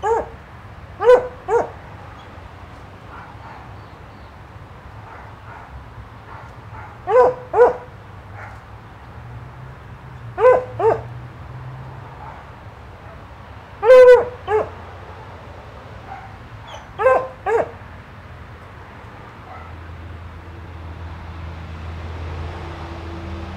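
A dog barking in pairs: two short barks close together, repeated every few seconds, stopping about three-quarters of the way through. A low rumble rises near the end.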